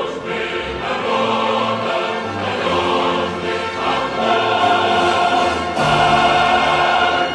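Choral music: a choir singing long held chords over instrumental backing, with a fuller, brighter chord coming in near the end.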